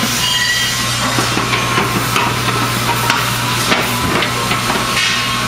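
Irregular light metallic knocks and clatter of aluminium platform deck panels being handled and pinned together, over background rock music.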